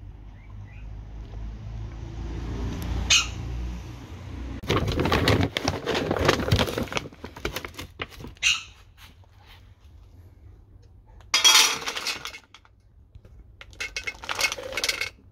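Dry dog kibble rattling in several bursts as it is scooped with a plastic measuring cup from a plastic bag. Near the end it clatters into a stainless steel bowl as it is poured.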